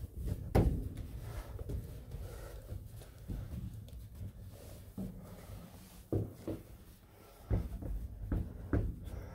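Thumps and knocks on weathered wooden floorboards and boards, most likely footsteps, over a low rumble. The loudest knock comes about half a second in, and a cluster of knocks comes near the end.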